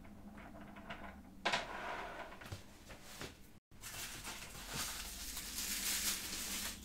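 Rustling and knocking of packaging as hands rummage inside a statue's shipping box, with a sharp knock about one and a half seconds in and a longer, louder rustle in the second half.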